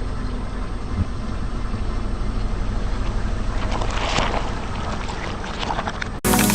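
Car engine running low and steady with wind on the microphone, with a spell of crackling about four seconds in as something is crushed under the tyres. Near the end the sound cuts abruptly to a louder, different recording.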